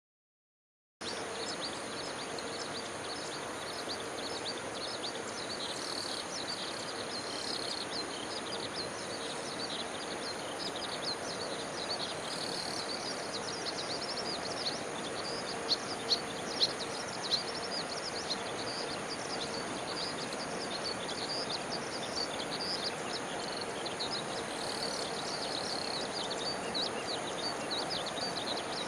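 Steady outdoor background noise with many short, high bird chirps throughout; a few sharp clicks near the middle.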